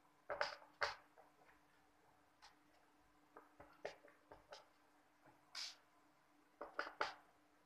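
Scattered small clicks, taps and scrapes of a screwdriver working screws out of the plastic back of a computer keyboard, in short clusters.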